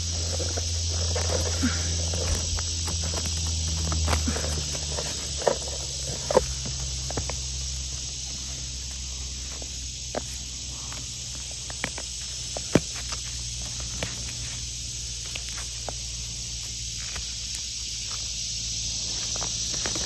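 A steady high-pitched insect chorus in summer woodland, with occasional sharp clicks and snaps of twigs and handling. A low hum is heard in the first few seconds and then fades.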